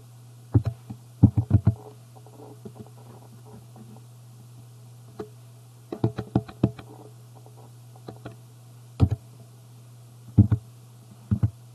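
Computer keyboard typing: short bursts of key clicks with pauses between, over a steady low hum.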